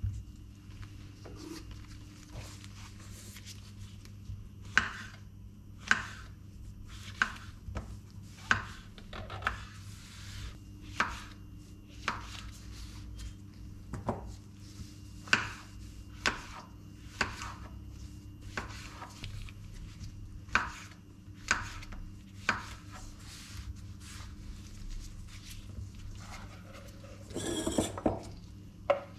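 Kitchen knife slicing button mushrooms on a bamboo cutting board: a sharp knock of the blade on the wood about once a second. Near the end, a scraping rustle as the slices are pushed off the board into a metal bowl.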